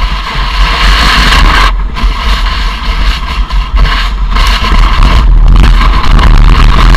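Wind buffeting the microphone, with the rushing hiss of powder snow as the camera moves fast downhill through deep snow; the hiss briefly drops out twice.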